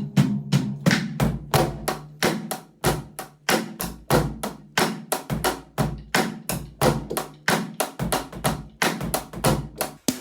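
DW hybrid drum kit being played: a fast, steady run of drum strikes, several a second, with the low drums ringing between hits.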